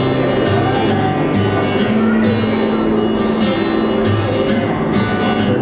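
Instrumental music with plucked guitar over held low bass notes that change every half second or so.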